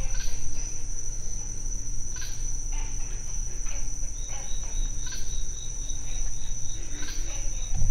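Night chorus of crickets with a steady high trill, joined about halfway by a pulsing chirp. Now and then there is a faint grunt from the swamp, which is taken for alligators.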